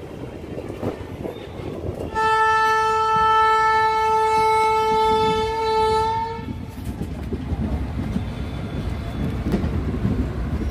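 Indian Railways train horn sounding one long steady blast of about four seconds, starting about two seconds in. Under it and after it, the running rumble and clatter of a moving passenger train, heard from inside a coach.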